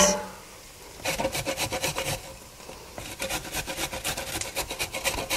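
A large carrot being shredded on a metal box grater: a quick run of rasping strokes starting about a second in, a short pause, then a second run.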